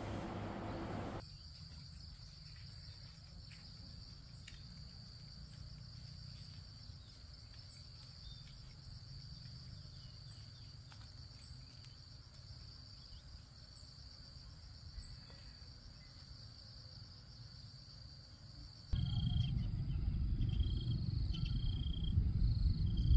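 Steady, high-pitched insect chorus in the countryside. About nineteen seconds in, a louder low rushing noise comes up, with short repeated chirps over it.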